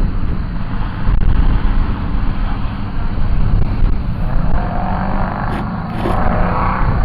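Car engine running with a steady low rumble, uneven in level; a higher whine joins in about two thirds of the way through.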